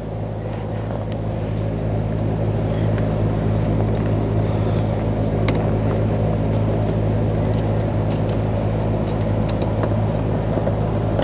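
A steady low hum throughout, with faint scraping and light clicks as the plastic lock ring of the fuel pump module is turned loose by hand.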